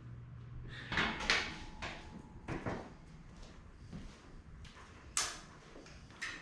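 A handful of short knocks and clicks, about five of them scattered through, the sharpest a little past five seconds in, over a faint low hum.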